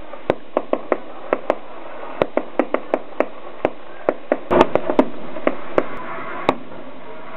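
Fireworks going off in a rapid, irregular series of sharp bangs, about twenty of them, bunching into a quick cluster a little past the middle.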